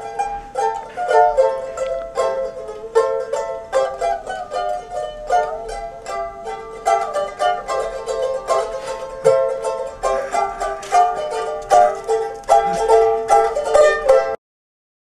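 Background music on a bright plucked string instrument, quick repeated notes in a lively melody, cutting off abruptly near the end.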